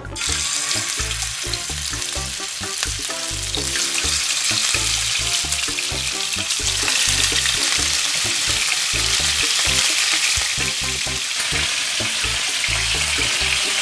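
Beef top blade steaks sizzling as they are laid into smoking-hot olive oil in a frying pan to sear. The sizzle starts suddenly and grows louder about four seconds in and again about seven seconds in, as more pieces go into the pan.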